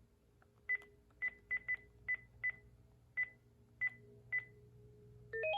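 Panasonic KX-TG5432M cordless phone beeping once for each key press while scrolling through its menu, about nine short beeps of the same pitch at uneven intervals. Near the end a ringtone melody of stepped electronic tones starts playing.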